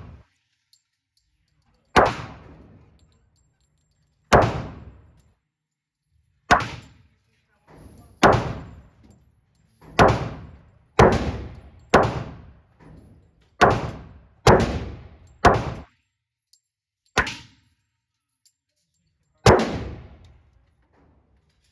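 About a dozen single pistol shots from a Glock handgun, fired one at a time at an uneven pace, one to two seconds apart. Each shot is a sharp crack with a short ringing tail.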